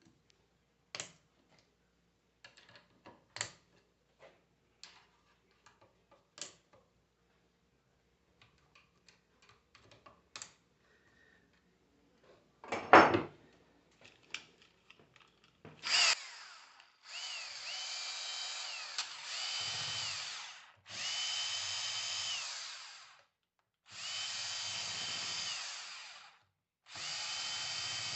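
Scattered light clicks and one loud knock, then an electric power tool run in four bursts of two to three seconds each, its motor whine rising as it spins up and falling as it stops each time.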